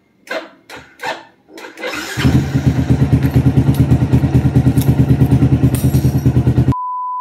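A Yamaha scooter's engine starting on the electric starter about two seconds in and then running with an even, pulsing beat, after a few short clicks and knocks from the key and switches. The engine sound cuts off abruptly near the end and a short steady beep follows.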